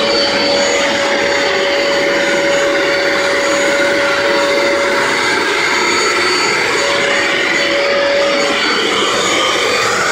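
Bissell ProHeat 2X Revolution Pet Pro upright carpet cleaner running loud and steady as it is pushed over carpet. Its motor gives a steady rushing suction sound with a held hum and a high whine on top.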